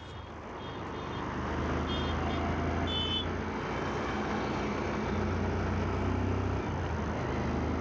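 Road traffic with vehicle engines running, a steady low rumble that builds over the first couple of seconds, with a few short high beeps about two and three seconds in.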